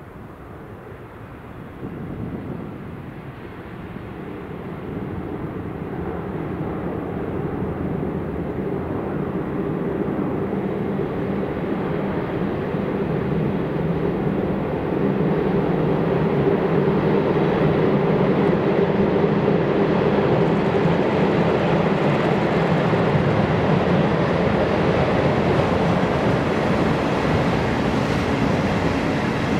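Double-headed JR Freight electric locomotives running light across a railway bridge: a steady rumble of wheels and motors that grows louder through the first half and holds near its loudest to the end.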